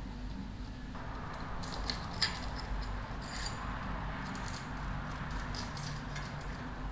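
Light metallic clicks and clinks of hand tools and small engine parts being handled at a motorcycle engine's cam gear, with one sharper click about two seconds in, over a steady low hum.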